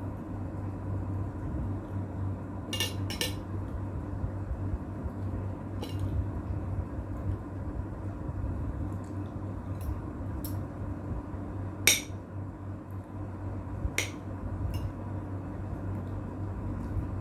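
Cutlery clinking against a plate while eating: scattered short, sharp clinks a few seconds apart, the loudest about twelve seconds in, over a steady low hum.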